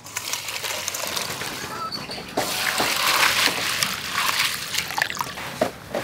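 Water poured from a plastic jug into a stainless steel bowl of glass noodles, splashing and sloshing as a hand works the noodles, louder from about two seconds in.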